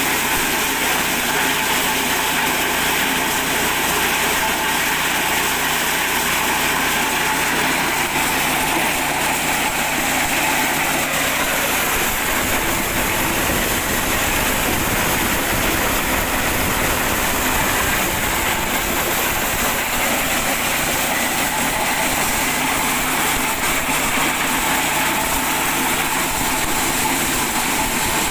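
Mini corn sheller driven by an 8 hp petrol engine, running steadily. A deeper rumble joins in about twelve seconds in.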